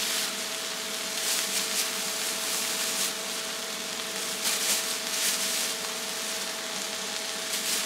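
Food sizzling on a hot iron teppan griddle, with a spatula scraping across the plate in several short strokes, over a steady hum.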